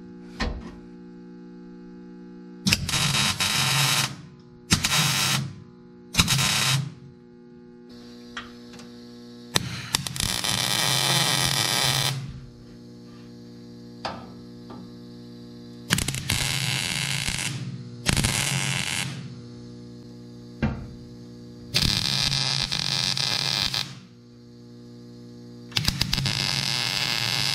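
Wire-feed (MIG) welder laying a series of short welds on sheet-steel cab panels: about eight bursts of crackling arc, each lasting from under a second to about two and a half seconds. A steady low hum carries on in the pauses between the welds.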